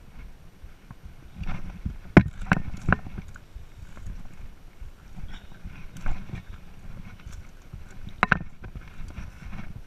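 Footsteps on rocky ground and through dry brush, with clothing rubbing on a body-worn camera. Three sharp knocks about two to three seconds in, and another near the end, are the loudest sounds.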